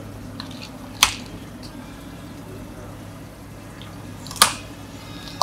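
Two sharp plastic snaps about three seconds apart as clear dome lids are pressed onto plastic iced-drink cups, over a steady low hum.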